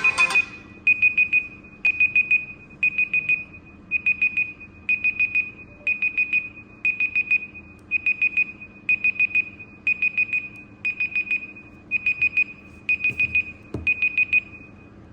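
Samsung Galaxy smartphone timer alarm beeping: quick groups of four high electronic beeps, one group about every second, which stop shortly before the end. A soft knock comes just before the beeping stops.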